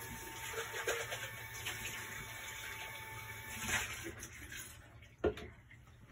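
Water running with a faint steady whistle, fading out about four and a half seconds in, then a single knock.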